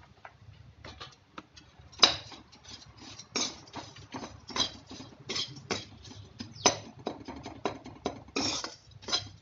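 Metal spoon scraping and clinking against a metal kadhai while stirring dry roasted poha, in irregular strokes about once or twice a second. It is quieter for the first two seconds, and the loudest scrape comes just after that.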